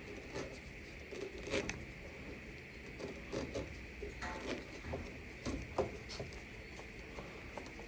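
Light, irregular scratching and small clicks of hands working on a dryer's pulley wheels, cleaning them.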